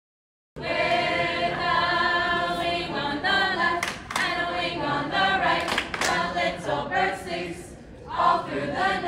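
A group of voices singing together unaccompanied, starting about half a second in, with a few sharp hits partway through.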